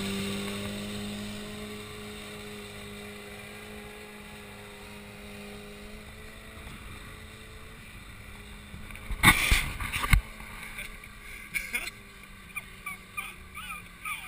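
Off-road 4x4 truck engine running at steady revs, fading away over the first several seconds. About nine seconds in comes a cluster of loud thumps, then scattered smaller knocks.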